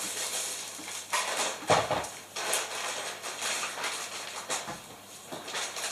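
Packaging being handled: irregular rustling and scraping of plastic wrap, packing material and cardboard, with one heavier knock about two seconds in.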